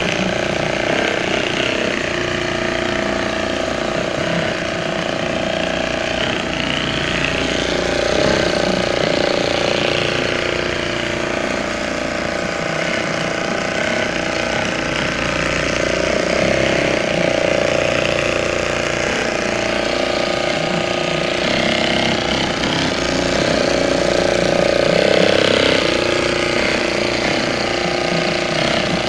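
Heavy-duty programmable automatic sewing machine for fishing hats running and stitching: a steady, rapid mechanical chatter of the needle drive that swells and eases every few seconds.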